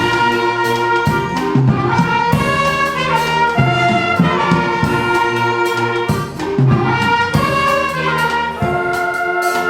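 Brass instruments playing music, held chords changing every second or so.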